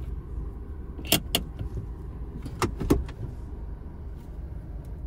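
Automatic gear selector lever of a Suzuki Jimny clicking through its detents as it is moved, in two quick pairs of clicks, over the steady low hum of the idling engine inside the cabin.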